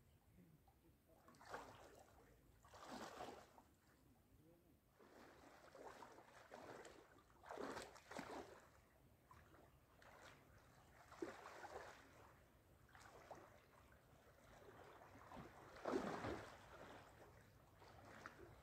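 Faint lake water splashing and sloshing in irregular bursts every second or two, as a person wades out through shallow water and slips in to swim.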